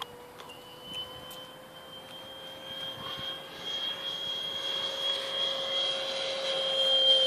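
Electric ducted fan of an RC model L-39 Albatros jet (90 mm Wemotec Midi Fan driven by an Arc inrunner motor) whining steadily in flight. It grows steadily louder as the jet comes closer.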